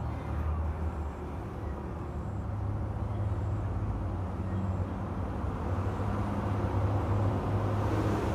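Steady low mechanical rumble with a faint hum, growing a little louder near the end; no frog calls are heard.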